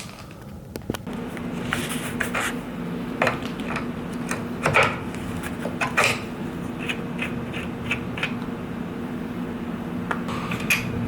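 Scattered metal clinks and clicks of a hand wrench and small parts as a nut and washer are worked off the rear of an electric scooter, over a steady low hum.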